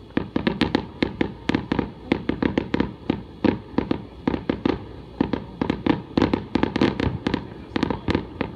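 Aerial fireworks bursting in a rapid, irregular barrage of sharp bangs, about four to six a second.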